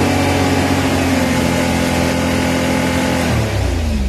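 Can-Am Maverick X3 Turbo RR's turbocharged three-cylinder engine revved in neutral and held steady at its neutral rev cap near 5,000 rpm, then falling back toward idle near the end. The clutch gives only a slight rattle, a softer noise than on the older X3.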